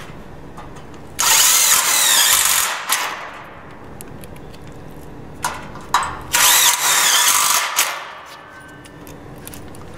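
Cordless drill driving screws into the steel top rail of a stud-and-track frame: two runs of the motor whining under load, the first about a second in and the second about six seconds in, each lasting around a second and a half.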